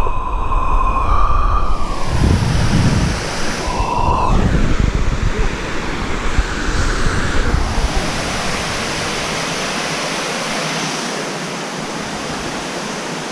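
Rushing water of a mountain stream or waterfall, a loud, even roar. In the first few seconds a whistling tone sounds over it, dips down in pitch and returns.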